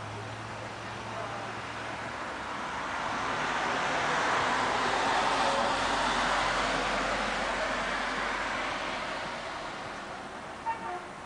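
A passing road vehicle: tyre and engine noise swells for a few seconds, peaks midway, and fades away again.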